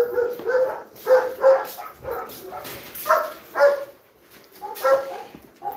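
Dogs barking, a string of short, loud barks about two a second, with a brief lull about four seconds in.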